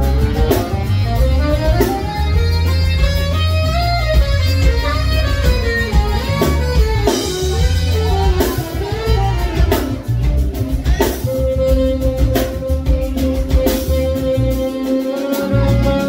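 Live funk-soul band playing, with a saxophone solo on top of bass, drums and keyboards. The saxophone winds through quick runs and bent notes, then holds one long note from about two-thirds of the way in.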